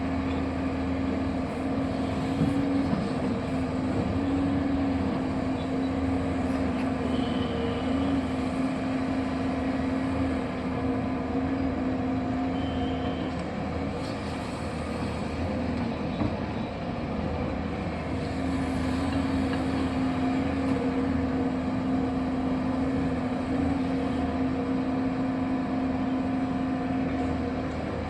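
Machine engine running steadily with a constant hum; the hum fades out about halfway through for a few seconds and then comes back.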